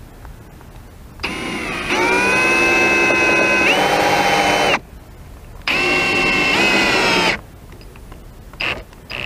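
Milwaukee FUEL cordless driver whining in two runs, a long one of about three and a half seconds that steps up in pitch and loudness partway through, then a shorter one, as it drives screws. A few light clicks follow near the end.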